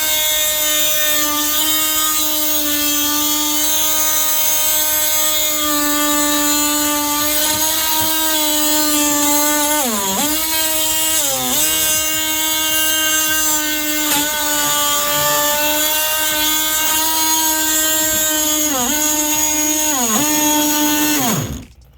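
Ryobi One+ 18V brushed multi-tool with its oscillating head running, the blade cutting around a plastic drain pipe. It gives a steady high whine whose pitch sags and recovers briefly several times as the blade loads up in the cut. It stops suddenly near the end.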